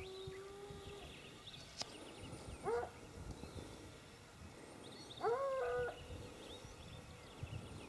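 Hounds baying: the end of a long, drawn-out howl about a second in, then a short bay near three seconds and a longer bay about five seconds in.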